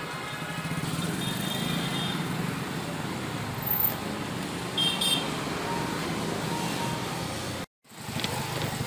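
Steady road traffic passing on a city street, with two brief high-pitched beeps about four and five seconds in. The sound cuts out completely for a moment near the end.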